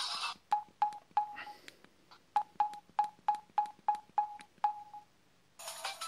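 Samsung M3200 mobile phone keypad beeps: about eleven short, identical beeps, each pressed on its own, as the ringtone menu is scrolled. One melody preview cuts off right at the start, and another preloaded melody starts playing near the end.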